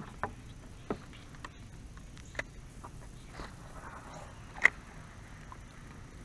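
Small canoe being paddled: a few sharp knocks against the hull, the loudest a little past halfway, over faint water swishing.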